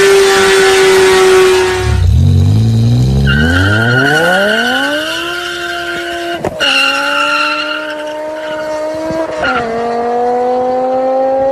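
A loud, hissy car sound with a steady note cuts off about two seconds in. A car engine then revs up hard from low. It accelerates through the gears: a click and a drop in pitch at each change, two-thirds of the way through and again near the end, with the revs climbing again after each.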